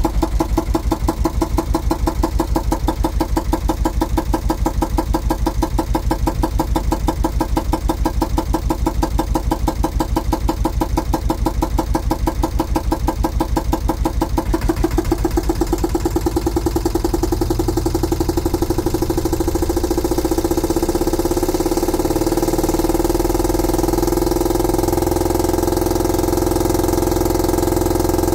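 Volvo Penta MD1B crank-start single-cylinder marine diesel running, with a steady, distinct beat of firing strokes. About halfway through, the beat gets faster and evens out into a smoother, steadier drone.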